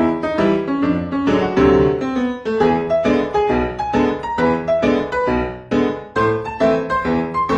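Background piano music: a steady run of struck notes, about three a second.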